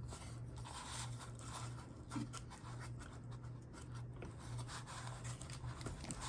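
Paper baking liners crinkling and rustling in scattered short crackles as hands press pastry dough into them in a metal muffin tin, over a steady low hum.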